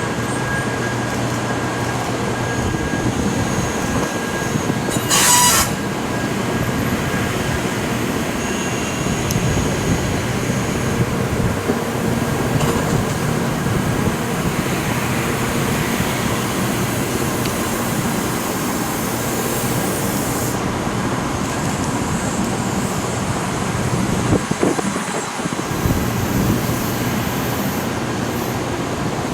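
A 700 series Shinkansen train running past on its way to the works for scrapping, with a continuous noise of wheels on the rails. There is a sharp click about five seconds in.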